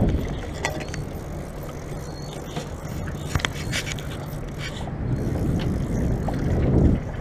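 Wind rumbling on the microphone over choppy lake water, with a few light clicks.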